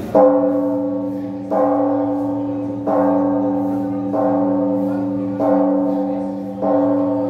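Church bell tolling: six strokes about every 1.3 seconds, each ringing on with several pitched tones and fading before the next.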